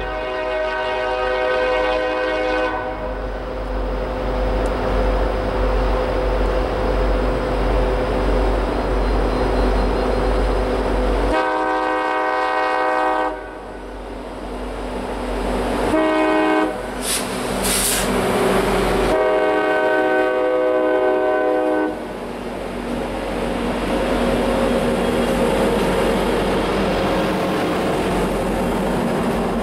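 CSX diesel freight locomotive's air horn blowing long, long, short, long, the standard grade-crossing signal, over the steady rumble of the locomotives. The freight cars then roll past with steady wheel and rail noise.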